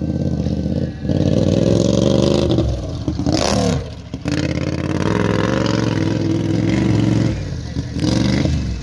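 Racing lawn mower's engine running hard, its pitch stepping up and down as it accelerates and slows through the turns. About three and a half seconds in the engine note dips under a brief rush of noise.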